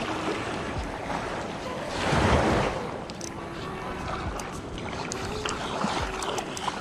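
Small waves washing in the shallows, with wind buffeting the microphone and a louder rush of sound about two seconds in.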